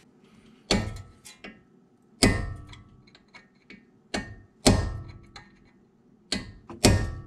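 Hammer striking a punch held against the rim of a CV axle's castle nut, staking the nut into the notch in the axle so it cannot back off. Four hard metal-on-metal blows about two seconds apart, with lighter taps between, each leaving a brief metallic ring.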